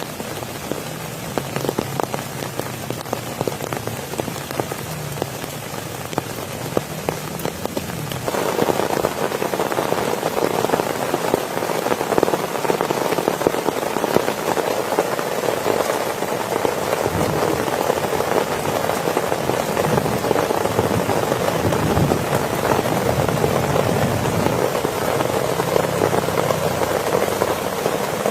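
Rain falling steadily on a surface, a dense patter of drops that grows louder about eight seconds in and stays heavier.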